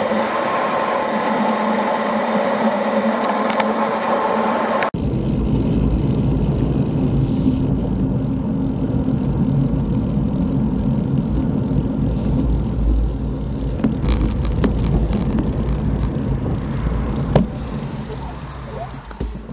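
Wind rushing over a bike-mounted camera's microphone, with tyre and road noise from riding a bicycle on tarmac. About five seconds in it switches abruptly from a hissier rush to a deep, low rumble, which fades near the end.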